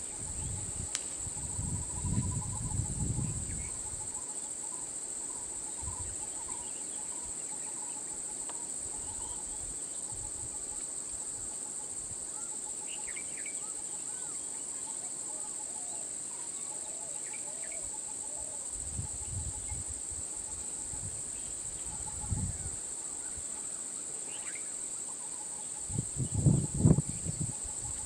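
Steady, high-pitched drone of an insect chorus, with scattered short bird chirps. A few low muffled rumbles come and go, the loudest near the end.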